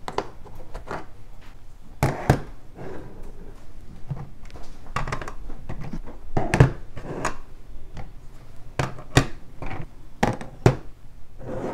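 Plastic-cased ink stamp pads being set down one after another on a table: a dozen or so irregular clacks and knocks, some in quick pairs, with light handling and sliding in between.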